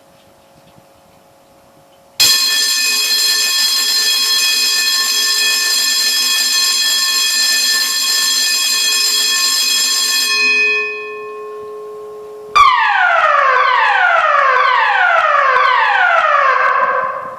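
A building fire alarm system sounding loudly. About two seconds in, a steady electronic alarm tone starts and holds for about eight seconds before fading. Then comes the German evacuation signal: about five falling sweeps in a row, each about a second long.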